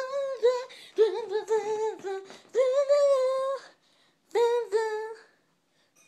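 A high young voice singing a wordless tune in several short phrases of held, gliding notes, with brief pauses between them and quiet in the last second.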